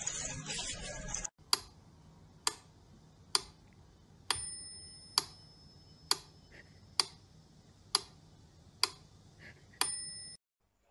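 Ten sharp, evenly spaced ticks like a clock, about one every second, two of them carrying a brief ringing tone; they stop suddenly near the end. A short stretch of louder, noisy sound cuts off about a second in, just before the ticking begins.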